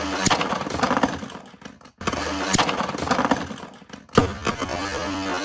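Beyblade Burst spinning tops whirring and rattling against a plastic stadium floor and walls, with sharp clacks as they collide. There is a loud crack about four seconds in. The sound breaks off briefly near two seconds.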